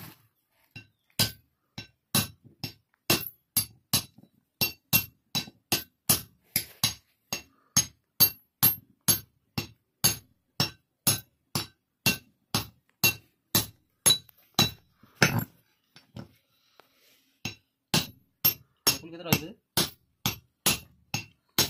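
Ball bearings being hammered down onto the steel shaft of a Kubota harvester's tension roller. Sharp metal-on-metal blows with a ringing tone come about two a second, with a brief pause about sixteen seconds in.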